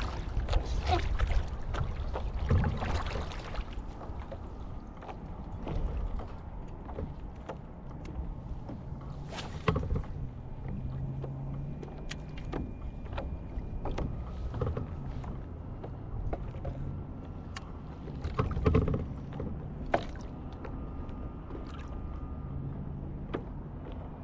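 A paddle stroking through the water beside a stand-up paddle board, with splashing for the first few seconds. Then scattered knocks and clicks, the loudest around the middle and past two-thirds of the way through.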